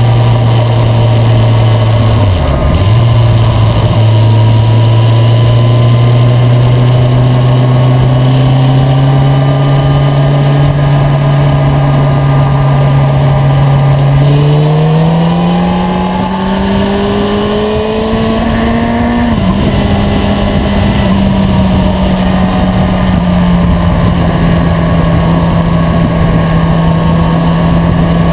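Motorcycle engine running at a steady speed, with a brief dip about two and a half seconds in. About halfway through it climbs in pitch as it accelerates, then drops with a gear change and settles steady again.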